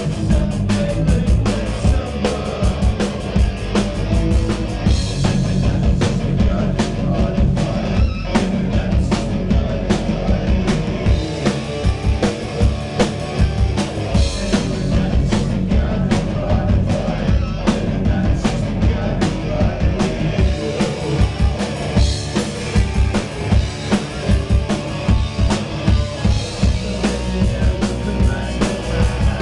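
Punk rock band playing live: a driving drum kit beat under bass and electric guitar, with a singer at the microphone.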